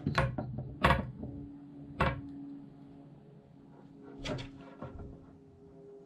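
Small handling knocks and clicks on a wooden tabletop as a speargun's shooting line and metal crimp are worked by hand: a few sharp taps in the first two seconds, then a short clatter about four seconds in as a pair of pliers is picked up off the table. A faint steady hum runs underneath.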